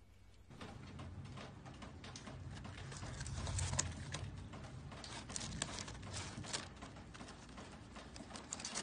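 Irregular rustling and small clicks of a cat pawing at fried food in a paper fast-food cup, over a low hum. It starts about half a second in.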